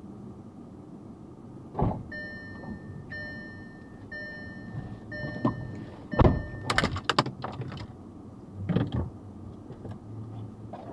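A car's electronic warning chime beeps five times, about once a second, over the steady low hum of the running car. A thump comes just before the chime, a cluster of clunks and clicks follows it, and there is another thump near the end: door and cabin handling noises.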